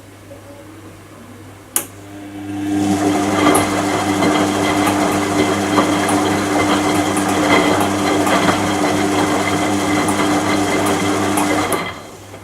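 Washing machine motor: a click, then the motor runs with a steady hum and rattle for about nine seconds before cutting off.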